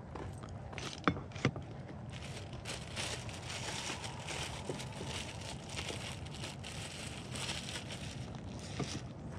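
Rustling and crinkling of hands working fishing bait and tackle at close range, with two sharp clicks a little over a second in, over a steady low background rumble.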